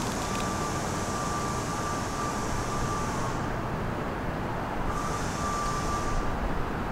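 Distant subway train running along an elevated line: a steady low rumble, with a thin high tone and a hiss over it. The tone and hiss come twice, first for about three seconds and then for about a second and a half.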